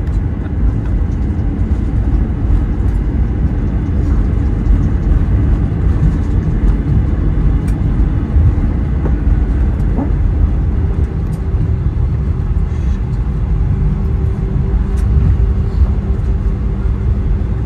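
Cabin noise aboard an Airbus A320 on the ground after landing: a steady low rumble from the engines at idle, with a steady hum joining about eleven seconds in.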